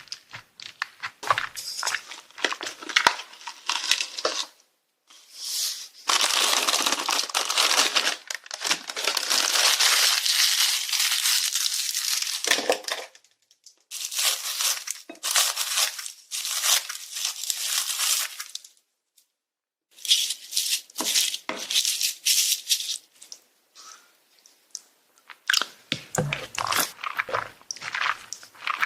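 Close-miked eating sounds: chewing and crunching in quick, irregular clicks, with longer stretches of crinkling. There is a brief dead silence a little past halfway.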